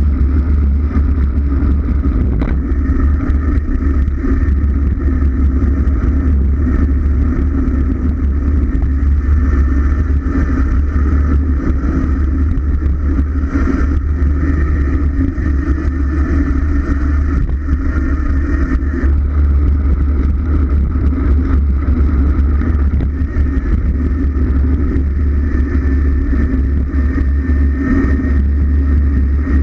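Steady rush of wind buffeting a bike-mounted camera's microphone on a fast downhill descent, with a heavy low rumble.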